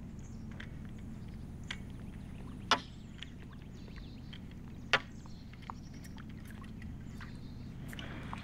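Two sharp knocks about two seconds apart over a low steady hum.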